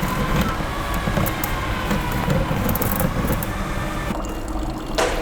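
Electric drill running steadily, turning a drain snake fed into a clogged sink drain. There is a sharp click near the end.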